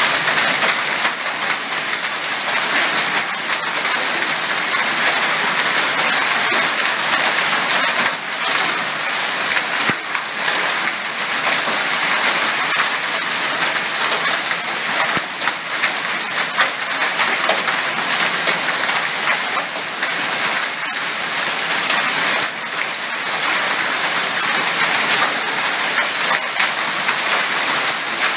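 Heavy rain pouring steadily onto roofs and the ground, with scattered sharp ticks of drops striking hard surfaces.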